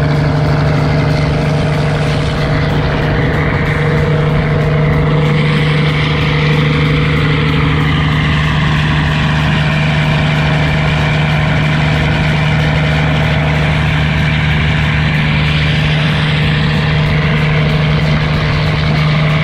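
River express boat's engine running steadily at cruising speed: a loud, even drone with a strong low hum, over the rush of the churning wake.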